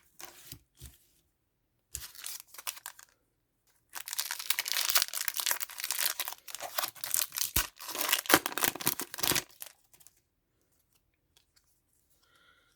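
A My Little Pony collectible card pack wrapper being torn open and crinkled: brief crackles in the first few seconds, then several seconds of loud tearing and crinkling that stops a few seconds before the end.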